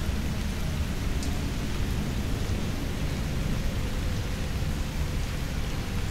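Steady rain with a continuous low rumble underneath, like distant thunder or wind.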